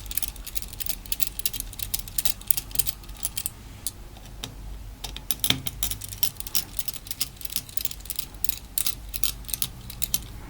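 Small Phillips screwdriver turning out tiny screws inside a tablet: a run of light, irregular clicks and ticks of metal on metal and plastic.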